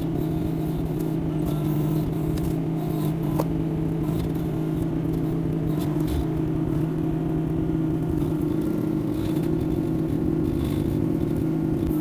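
Yanmar diesel engine of a Kymron XH20D mini excavator running steadily at a constant speed.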